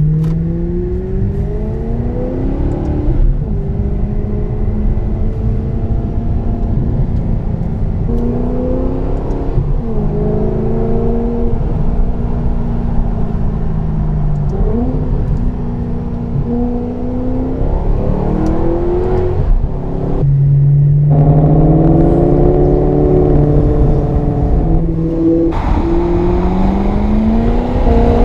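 Maserati GranTurismo Sport's 4.7-litre V8 accelerating hard through the gears. The engine note climbs in pitch and drops back at each upshift, many times over. A short lull about twenty seconds in gives way to a steady note, then more rising pulls near the end.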